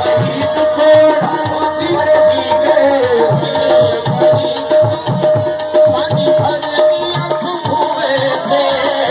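Music with a steady hand-drum rhythm under a held drone tone and a gliding melody line.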